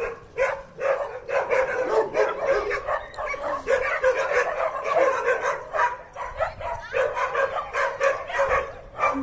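Dogs barking and yipping rapidly and without a break, short calls several times a second.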